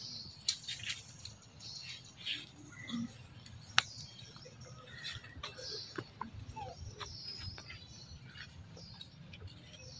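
Scattered short, high animal chirps and squeaks over faint low background noise, with one sharp click just under four seconds in.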